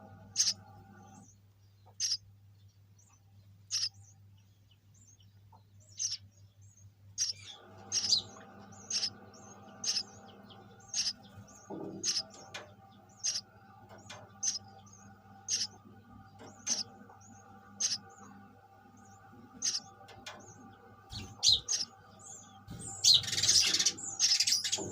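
Sparrow chirping: short single chirps every second or two, then a busier run of chirping near the end, over a faint steady hum.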